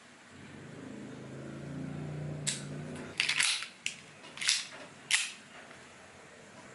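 Airsoft pistol firing about six sharp shots at uneven intervals between about two and a half and five seconds in, with a low hum in the first three seconds.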